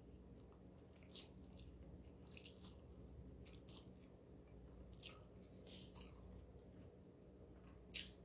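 Quiet eating sounds: a handful of short, wet slurps and mouth smacks from a person eating instant noodles, a second or so apart. The loudest comes near the end, as she bites into a chicken drumstick.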